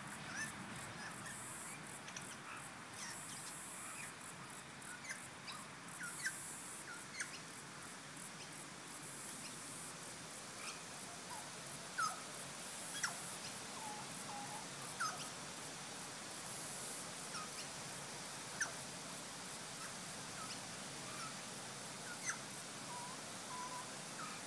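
Faint, scattered short bird chirps, one every second or two with a few sharper ones, over a high pulsing buzz in the first half.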